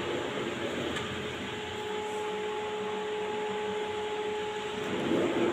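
Pull-out wire dish-rack drawer under the sink sliding open on its runners, with a steady whirring hum for about three seconds in the middle.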